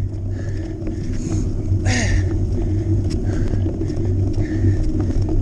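Steady low rumble of a cyclocross bike riding fast over sand, heard from a camera mounted on the bike, with light rattles and a brief pitched cry about two seconds in.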